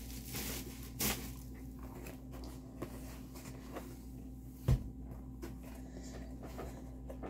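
Handling of a diamond-painting kit's boxes and packaging: small scattered clicks and knocks, a sharper knock about a second in, and a dull low thump a little before five seconds in.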